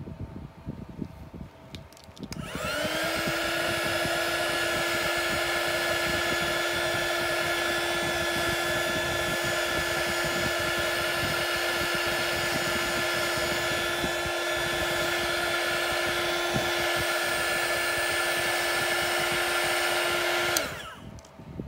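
Small handheld electric blower running steadily with a motor whine and rushing air as it blows poured resin across the moulds. It spins up about two and a half seconds in and winds down shortly before the end.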